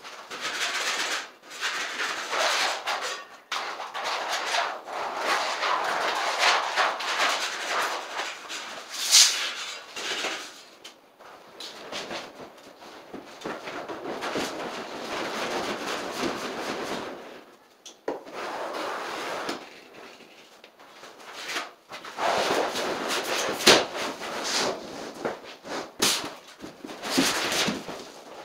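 Vinyl sheet flooring being handled and spread over a bare floor: rustling, crackling and scraping of the plastic sheet, with a few sharp knocks.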